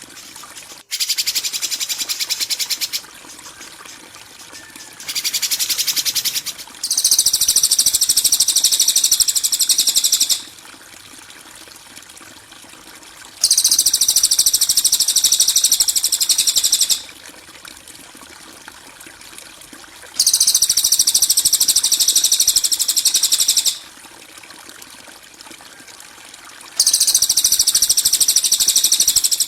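Masteran bird-training recording of harsh, rapid, high-pitched songbird chirping ('kasaran'). After two shorter bursts, the same trill repeats in bursts of about three and a half seconds roughly every seven seconds, like a loop, over a faint steady hiss.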